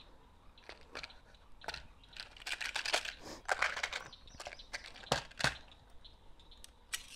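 Handling .22 LR cartridges and their boxes at a shooting bench: scattered small clicks and crunchy rustling as rounds are picked out and fed to a tube-fed semi-auto rifle, with two sharper clicks about five seconds in.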